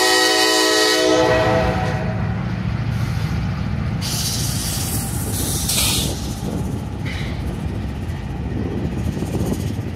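A freight train's air horn holds a chord that cuts off about a second and a half in. Then a GE Dash-9 diesel locomotive and double-stack intermodal well cars roll past with a steady low rumble of wheels on rail, and a loud hiss about four to six seconds in.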